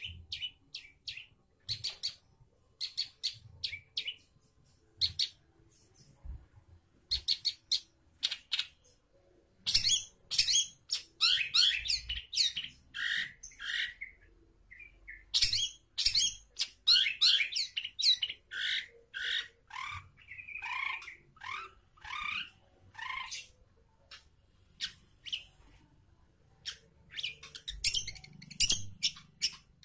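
Caged long-tailed shrike singing: clusters of short, sharp, high calls, then from about ten seconds in a loud, rapid run of varied chattering notes, with some lower, falling notes in the middle, and short sharp calls again near the end.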